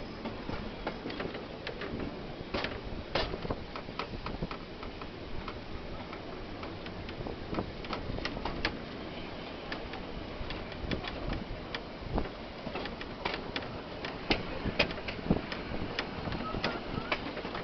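Train carriage running along the track: a steady rumble with many sharp, irregular clicks and knocks from the wheels and running gear.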